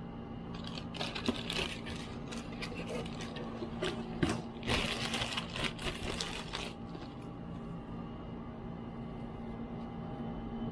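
Clicks and scraping from laptop parts being handled on a workbench during the first six or seven seconds, then only a steady background hum.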